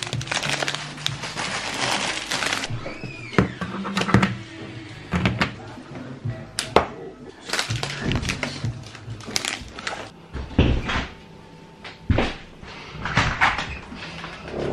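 Background music over the rustle of plastic shopping bags and scattered knocks of groceries and packaging being handled and set down while shopping is unpacked. The rustling is densest in the first couple of seconds.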